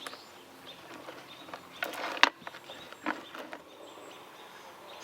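A few sharp clicks and clinks of saw chain and tools being handled, the loudest a little over two seconds in, over a faint steady background.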